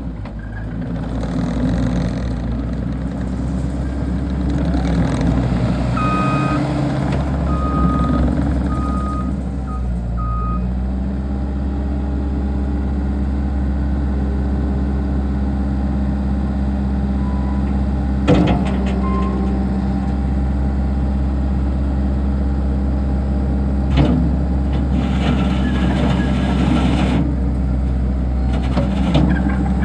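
Case TR310 loader's diesel engine running steadily, with its reversing alarm beeping several times about six to ten seconds in and again near the end. Two sharp clanks come through, about two thirds of the way in.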